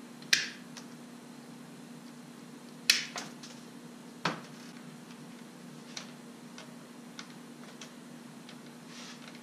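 Sharp clicks and snips of a hand cutting tool as a rubber vacuum hose is trimmed to length. The loudest snap comes about three seconds in, with fainter ticks later, over a faint steady hum.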